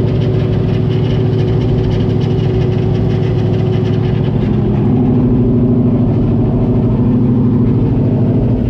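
Race truck's engine idling steadily, a little louder from about halfway through.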